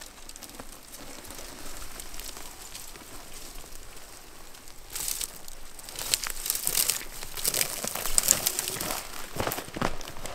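Footsteps crunching and crackling through dry grass and dead branches on a steep slope, with brush rustling. It grows louder and busier about halfway through as the walker comes closer.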